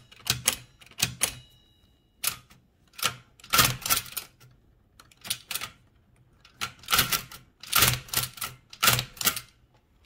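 Toshiba BW-3112 Japanese kanji typewriter typing characters: sharp mechanical clacks and clicks in uneven groups about every second, with short quiet gaps, loudest about four and eight seconds in.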